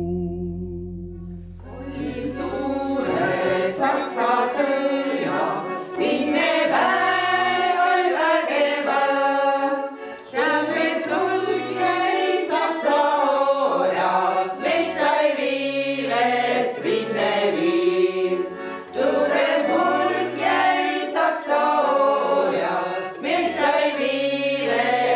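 A cappella choir singing a slow chant in several harmonised parts over low bass notes, coming in about two seconds in as a low held drone fades out.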